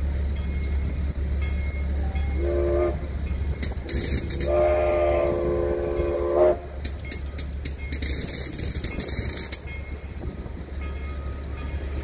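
Steam locomotive whistle blowing twice: a short toot, then a longer blast of about two seconds. Sharp bursts of steam hissing come between and after the blasts.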